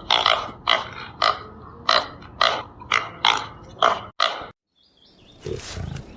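An animal giving short, sharp calls about twice a second. They stop abruptly a little over four seconds in, and after a brief silence a deeper, rougher animal call starts near the end.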